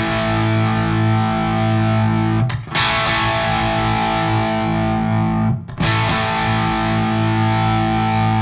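1963 Fender Stratocaster electric guitar through a KOR Eden Drive overdrive pedal with its voice control at zero: an overdriven chord struck and left to ring, struck again twice about three seconds apart.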